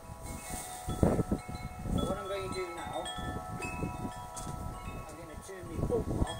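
Metal chimes ringing: several long, overlapping tones that hang on, with a few knocks about one, two and six seconds in.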